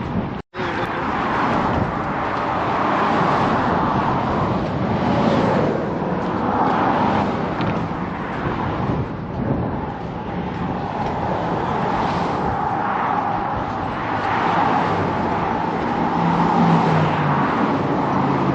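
Steady road traffic noise, swelling and fading every few seconds as vehicles pass, with a brief gap in the sound about half a second in.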